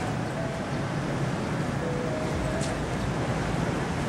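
Steady outdoor rushing noise: city traffic with wind on the microphone, a few faint short tones in it.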